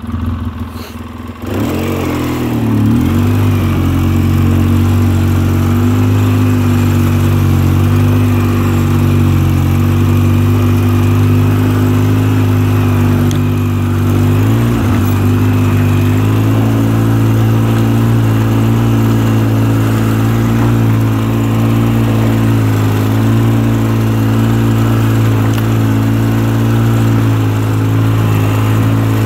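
Polaris Sportsman 700 Twin ATV's twin-cylinder engine running steadily as it rides along, heard from the rider's seat, with brief wobbles in engine pitch about two seconds in and again halfway through.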